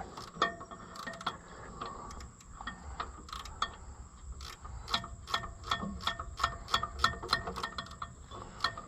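A ratchet wrench clicking in short strokes as a bolt on the engine's speed control is worked, the clicks sparse at first and coming in quicker runs from about halfway through.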